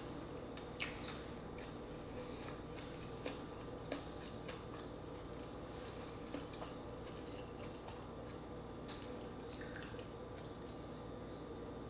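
Close-miked chewing of green-lipped mussels: soft, wet mouth clicks and squishes scattered irregularly over a faint steady hum.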